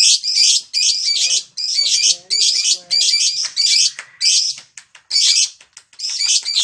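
Lovebird "ngekek" call: a long run of shrill, harsh chattering in short bursts, about two to three a second, without a pause. It is the kind of call used to prompt other lovebirds to sing.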